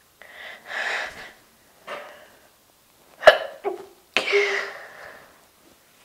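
A woman's induced sneezes: breathy build-up breaths, then a sharp sneeze a little over three seconds in, followed by a longer second sneeze about a second later.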